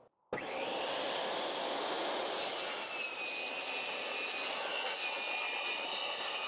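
Table saw running and cutting a wooden bed board: a loud, steady whine that comes in abruptly just after the start, with high whining tones joining about two seconds in.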